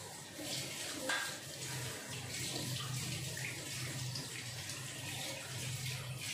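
Vegetarian chilli simmering in a lidded frying pan, a steady bubbling, crackling hiss under the glass lid with a low hum beneath it and a brief tick about a second in.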